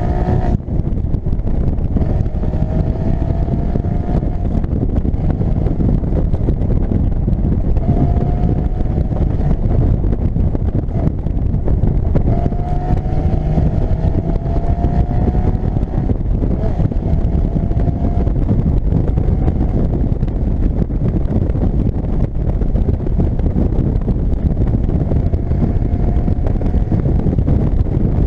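Porsche Boxster Spyder's 3.8-litre flat-six engine pulling with rising revs several times, heard from the open cockpit. Heavy wind and road rumble lie over it throughout.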